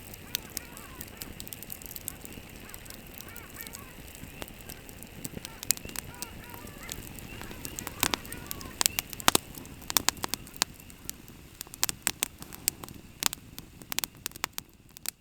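Campfire crackling and popping: irregular sharp snaps over a steady hiss, growing more frequent and louder in the second half. Faint rising-and-falling calls sound in the background during the first half.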